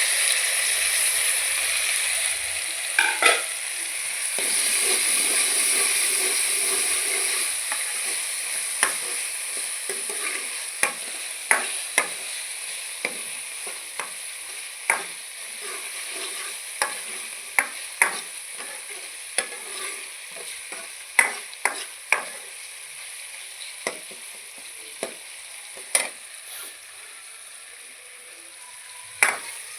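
Chopped tomatoes sizzling in the pan with fried onions. The sizzle is loud for the first several seconds, then dies down, while a spoon stirs and knocks against the pan about once a second.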